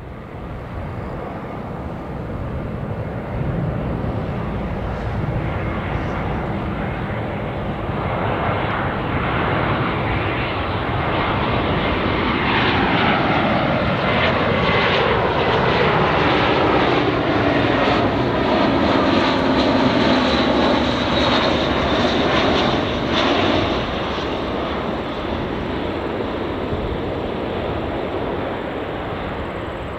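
Airbus A320-232 jet on landing approach, its IAE V2500 turbofans rising to a loud roar as it nears, then a whine falling steadily in pitch as it passes close by about halfway through. The noise eases off a little before three-quarters of the way in.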